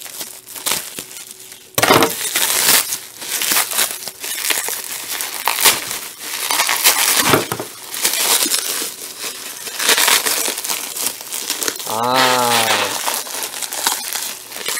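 Plastic bubble wrap crinkling and crackling as it is pulled apart and crumpled by hand to unwrap an object. A few light rustles come first, then steady, loud crinkling starts about two seconds in.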